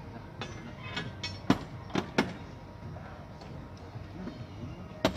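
Heavy cardboard boxes of fish being loaded into a shipping container, knocking and thudding down several times: the loudest about one and a half seconds in, two more close together around two seconds, and another near the end. A steady low hum runs underneath.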